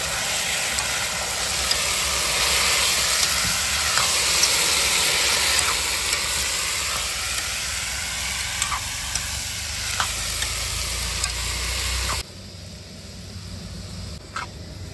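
Fried peas and tomatoes sizzling in a hot kadhai while a ladle stirs them, with a few sharp clinks of the ladle on the pan. About twelve seconds in, the sizzle drops suddenly to a much quieter level.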